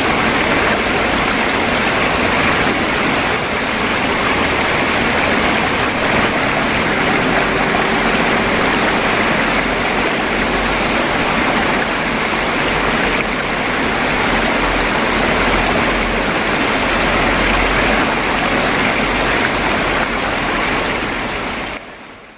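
Flowing water babbling steadily, fading out at the very end.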